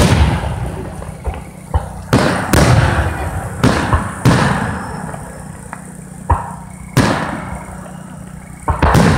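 Aerial firework shells bursting overhead: about ten sharp bangs at uneven intervals, each trailing off in a fading rumble, with a quieter gap around five to six seconds in.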